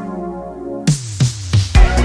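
Electronic background music. The drums drop out briefly, a hit with a falling sweep comes about a second in, and the beat picks up again near the end.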